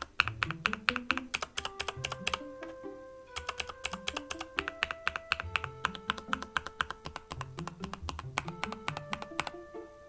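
Fast typing on a Dustsilver D84 mechanical keyboard with Gateron Red switches: a dense run of key clicks that thins briefly about three seconds in. Background music with held notes and a moving bass line plays under it.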